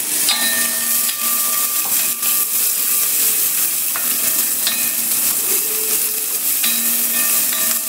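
Chopped onions sizzling in hot coconut oil in a bell-metal uruli, stirred with a wooden spatula that now and then clicks and scrapes against the pan. A steady background hum of several tones comes and goes.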